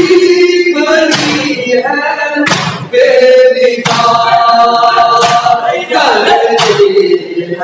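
A Shia noha (lament) chanted by many men's voices together, with a broad slap a little over once a second: the mourners striking their chests in unison as matam, keeping the beat of the lament.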